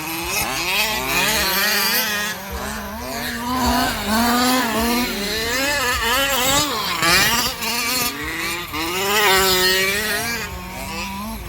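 Several 1/10-scale radio-controlled cars running, their small engines and motors whining and revving so that the pitch keeps rising and falling, over a steady lower drone.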